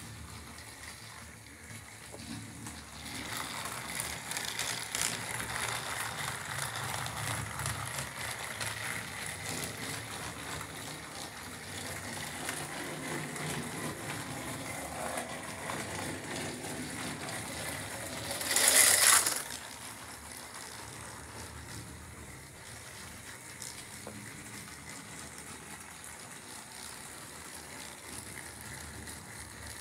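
Battery-powered toy train running on plastic track, a steady mechanical whirring and rattling. A single loud, brief noise cuts across it about 19 seconds in.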